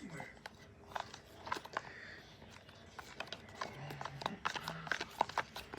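Spoon stirring a sticky glue and food-colouring slime mixture in a bowl: an irregular run of small clicks and wet squelches.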